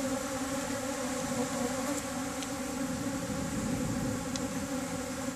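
Steady, dense buzzing of many leafcutter bees flying around and into their nesting board. It cuts off abruptly near the end.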